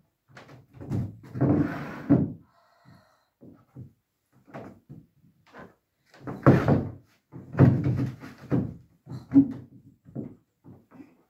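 A string of knocks and thumps from a wooden chair being moved and sat on, with the sitter shifting on the seat. The loudest clusters come about one to two seconds in and again about six to nine seconds in.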